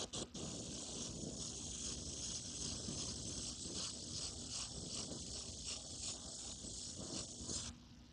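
Iwata Eclipse HP-CS airbrush spraying paint through a stencil: a steady hiss of air and paint mist, after a couple of short trigger blips, that stops sharply near the end.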